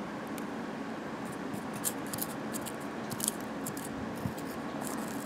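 Scratchy scraping of a utensil against the inside of a small bowl, breaking up charred paper money into ash, in short irregular strokes from about a second in. A steady fan hum runs underneath.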